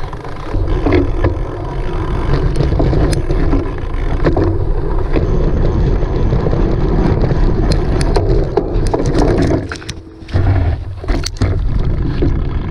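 Cyclocross bike ridden over a rough course: continuous rumble and rattle with frequent sharp clicks and wind on the microphone, briefly dropping away about ten seconds in.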